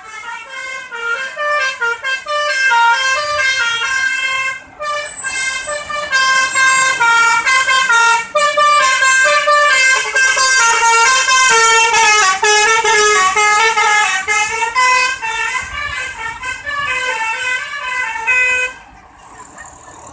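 Telolet basuri bus horn playing a fast, stepping multi-note melody, loud and continuous, with two brief breaks, about five and eight seconds in; it cuts off shortly before the end.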